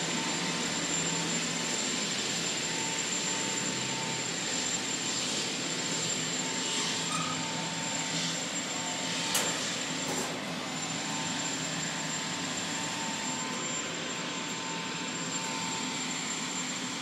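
Steady industrial machinery noise: a dense rushing hiss with a constant high-pitched whine and a low hum, as from dry dock pumps and blowers. A single sharp click about nine seconds in.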